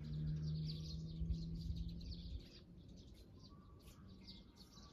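Small birds chirping in quick, high calls throughout. A low steady hum is heard under them at first and stops a little over two seconds in.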